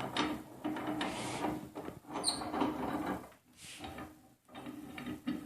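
Handling noise from a glued-up wooden panel being moved and slid, with scraping and rustling and a short squeak about two seconds in.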